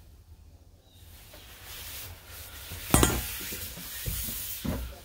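A door banging shut with a metallic clatter about three seconds in, then a few low thumps and handling noise.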